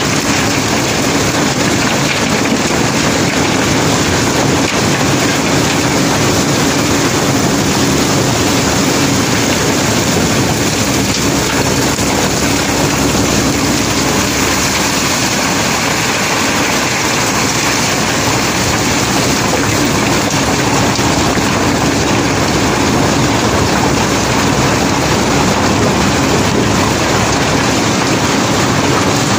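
Loud steady machinery running during the unloading of a barge load of river cobbles and gravel, with a continuous rattle of stones sliding and tumbling.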